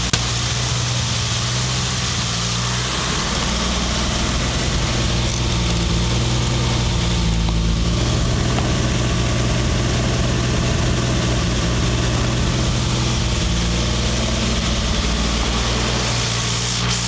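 Turbocharged BMW E30 engine running steadily at idle, its valve train ticking loudly. The owner suspects the engine is misfiring, though the valve noise largely hides it.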